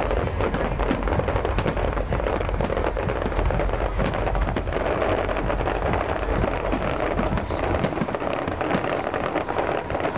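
Fireworks display going off in a dense barrage: a continuous rain-like crackling from many small bursts of crackling stars.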